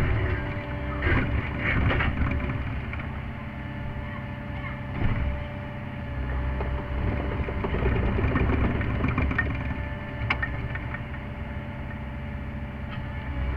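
Sany SY50U mini excavator's diesel engine running steadily inside the cab, rising and falling with hydraulic load as the arm digs. Scattered knocks and scrapes from the tooth bucket working into soil and stone come at the start, around one to two seconds in, at about five seconds and at about ten seconds.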